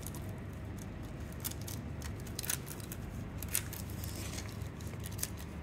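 Scissors snipping through a rhinestone transfer sheet, the clear transfer tape holding the stones, in a few separate cuts about a second apart. A low steady hum lies underneath.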